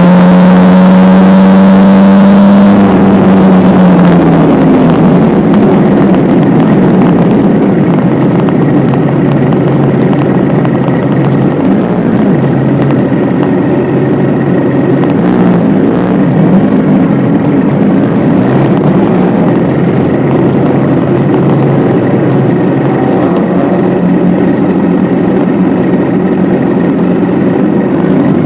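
Motorcycle engine running under way, its pitch holding for a few seconds and then dropping about four seconds in, with rushing wind and road noise over the whole ride.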